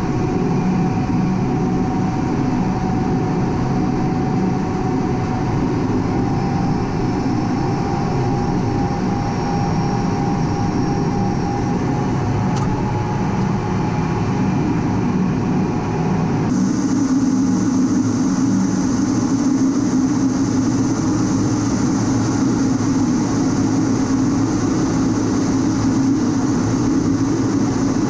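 Cockpit noise of an A-10 Thunderbolt II in flight: the twin TF34 turbofans and rushing air make a steady, dense roar with a few held tones. About 16 seconds in, the sound shifts abruptly to a different, brighter roar.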